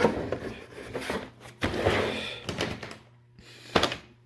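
Small plastic model train display cases being handled and set down on a table: rustling and several knocks, the sharpest a single thunk near the end.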